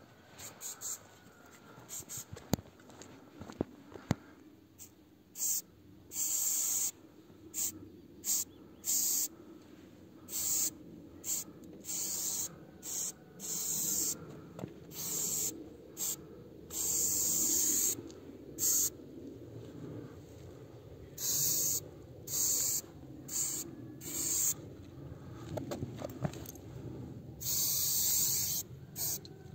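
Aerosol spray paint can sprayed in many short bursts, each hiss lasting from a fraction of a second to about a second and a half, over a low steady background rumble. A few sharp clicks sound near the start.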